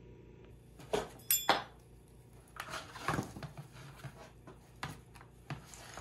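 Irregular clicks and clinks of old seat belt retractors, metal brackets and a hand tool being picked up and handled on a workbench.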